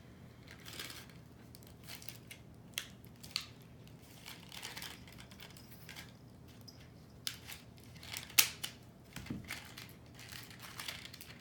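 Toy packaging being worked open by hand: crinkling and rustling with scattered sharp clicks, the loudest a snap about eight seconds in.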